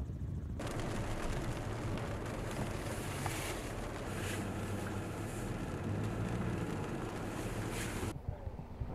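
A car driving through a flooded road, heard from inside: a low engine hum under a steady rush of water spray and rain, with a few brighter surges. A brief low wind rumble comes before it, and the rush cuts off suddenly near the end.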